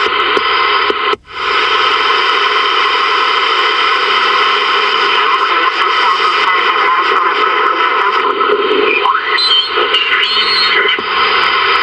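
Multimode CB receiver (Ranger VR-9000) hissing with band noise while tuned around 27.515 MHz lower sideband, the audio dropping out for a moment about a second in. Near the end a faint, garbled sideband voice comes through the static.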